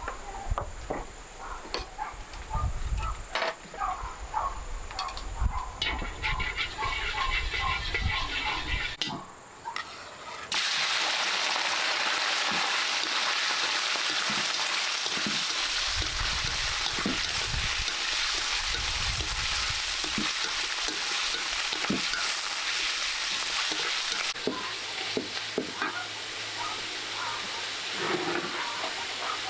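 Food frying in hot oil: a loud sizzle starts suddenly about ten seconds in and keeps going, easing a little near the end, with occasional knocks of stirring. Before it, scattered clicks and knocks.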